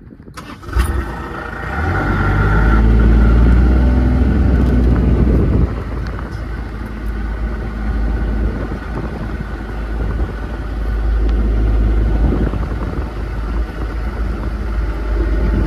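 Car engine running with a low rumble, coming in suddenly about a second in. It is loudest for the next few seconds, then settles a little lower and steadier.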